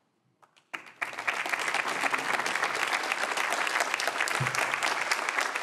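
Audience applauding, starting about a second in after a brief quiet.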